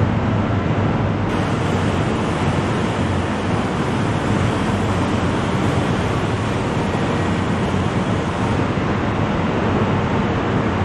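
Steady car-factory assembly-line noise: an even rushing sound with a low hum underneath and no single clank or tool standing out. It brightens slightly about a second in.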